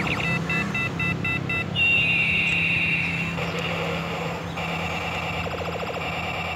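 Electronic toy sound effects over a steady low hum: a quick run of short beeps, then a falling tone, then a steady warbling tone.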